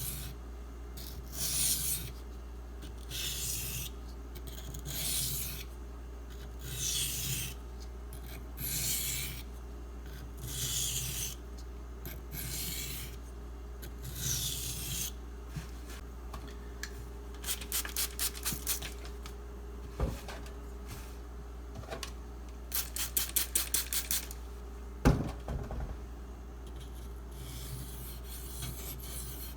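SG2 knife blade ground across a coarse Shapton Pro 320-grit water stone with a gritty slurry, in long even strokes about one every two seconds. It then goes over to two runs of quick short strokes. A single sharp knock comes near the end.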